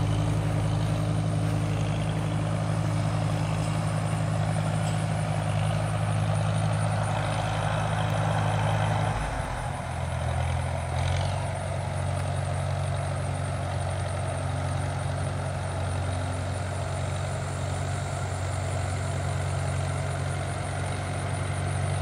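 1941 Farmall H tractor's four-cylinder engine running steadily as the tractor is driven over grass. The engine note shifts about nine seconds in, then holds steady again.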